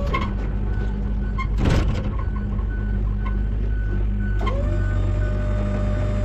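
John Deere skid loader's diesel engine running steadily while its backup alarm beeps in a rapid, even series. A brief loud burst of noise comes just under two seconds in, and a steady tone starts near the end.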